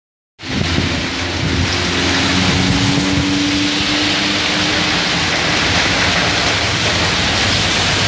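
Heavy rain pouring down onto a wet road, a loud, dense, steady hiss that starts suddenly just after the beginning. Under it, a steady engine hum from passing street traffic runs through the middle and then fades out.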